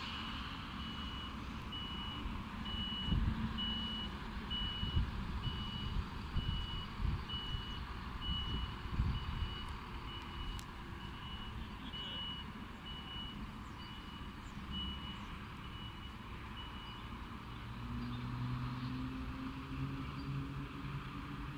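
A fire engine's reversing alarm beeping steadily, about one and a half single-tone beeps a second, over the low rumble of the truck as it backs into its garage bay. The beeping stops near the end as the truck comes to rest.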